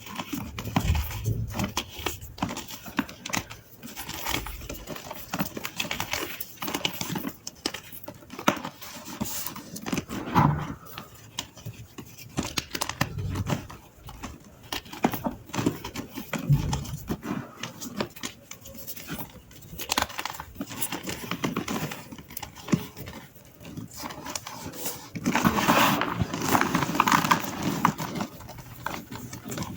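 Dry gym chalk crumbled by hand: a steady run of irregular small crunches and crackles with powdery rustling, growing louder and busier near the end.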